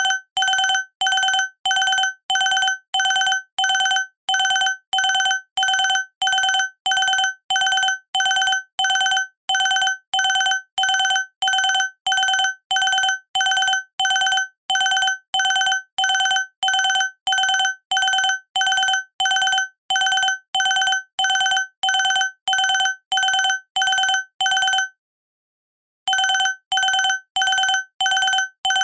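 Electronic alarm beeping: a single steady tone repeated about twice a second, pausing for about a second near the end and then starting again. It is the wake-up alarm at the end of a nap timer.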